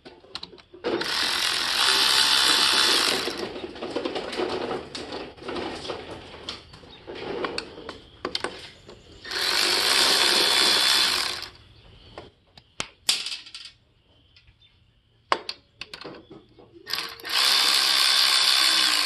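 Power ratchet with a 12 mm socket running the cylinder head nuts off a Kawasaki KX85 two-stroke engine, in three runs of about two seconds each with a steady whine. Clicks and knocks of the tool and nuts come between the runs.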